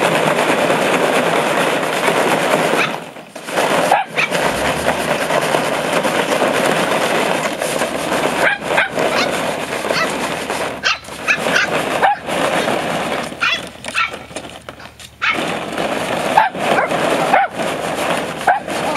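Sheltie puppies giving short yips and barks, scattered and more frequent in the second half, over a steady rushing background noise.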